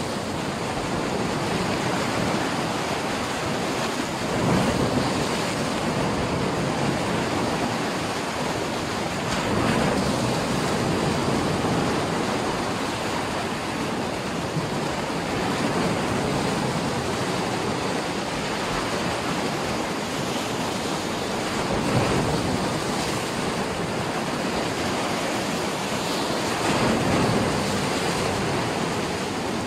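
Black Sea waves washing onto the shore, a steady rushing that swells louder now and then as a wave breaks.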